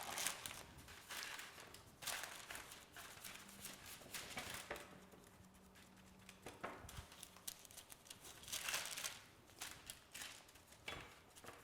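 Faint rustling and crinkling handling noises in short, irregular bursts, with a faint steady low hum through the middle.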